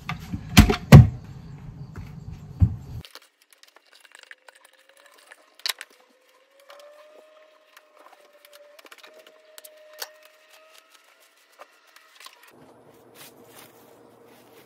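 A food processor running in short pulses through crumbly pie dough, with sharp knocks; it cuts off about three seconds in. Then come quiet scattered taps and crinkles of plastic wrap as the dough is pressed together by hand.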